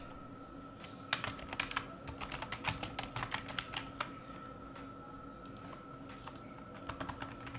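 Computer keyboard typing: a quick run of keystrokes for about three seconds, then a few scattered keystrokes near the end. A faint steady tone runs underneath.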